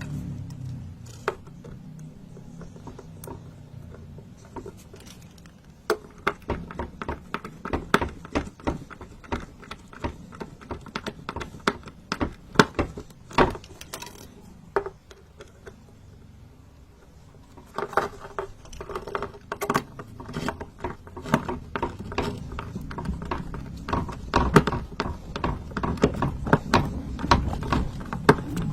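Irregular clicks, taps and knocks of objects being handled by hand, sparse at first and busier from about six seconds in, with a short lull after the middle.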